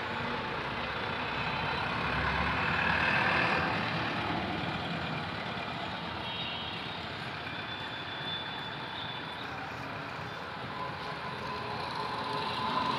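Steady background noise of road traffic, with a thin high tone for a few seconds around the middle.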